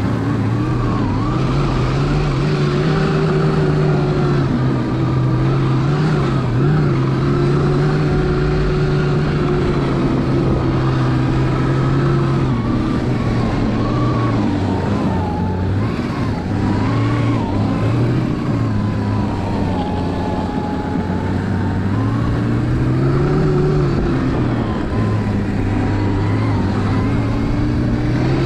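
Electric snowbike with a TrackNGo track kit riding: the motor and track drive give a steady whine whose pitch drifts up and down with speed, rising again about 23 seconds in.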